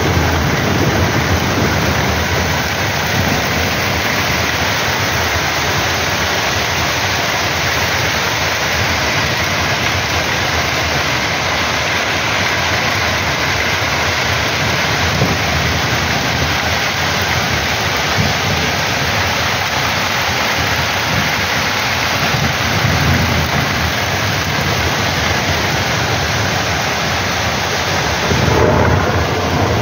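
Heavy downpour: dense, steady rain falling on a wet street, with low rumbles of thunder underneath. There is a brief louder swell near the end.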